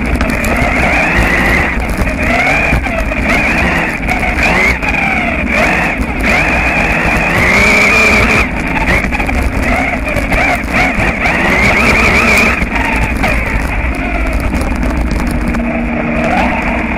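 Onboard sound of a radio-controlled buggy driving over gravel. The motor's pitch rises and falls again and again with the throttle, over the noise and rumble of the tyres on loose stones.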